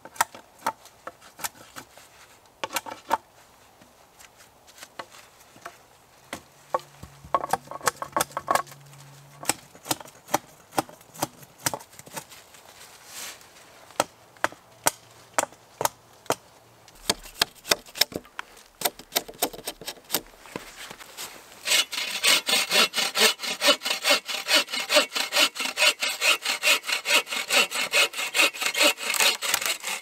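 Small hatchet chopping and trimming wooden poles, a run of sharp separate strokes about one or two a second. About 22 seconds in, a hand saw starts cutting through a log with rapid back-and-forth strokes, the loudest part.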